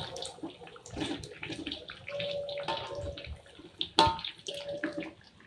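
Pempek fish cakes frying in hot oil: a crackling sizzle with scattered spits, and one sharp loud pop of spattering oil about four seconds in.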